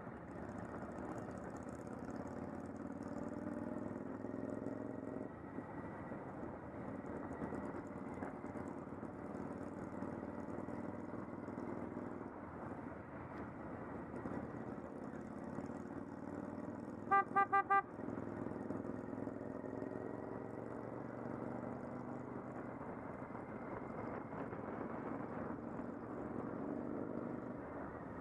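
Motorcycle engine running at cruising speed with steady wind and road noise. A horn sounds four quick toots a little over halfway through, the loudest sound here.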